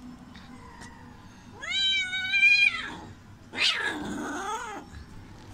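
Domestic cat meowing twice: a long meow that falls in pitch at its end, then about a second later a rougher, wavering yowl.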